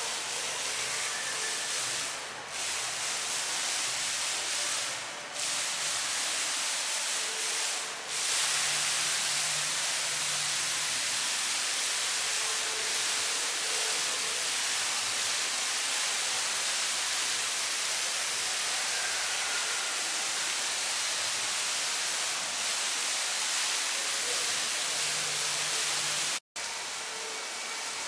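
Steady hissing noise with no clear pitch or rhythm, cut off briefly near the end.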